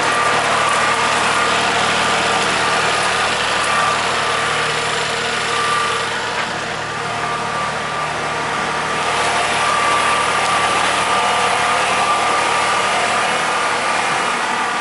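Kubota tractor's diesel engine running steadily while it works, with a constant high tone over the engine sound; the level eases slightly about six seconds in, then picks up again.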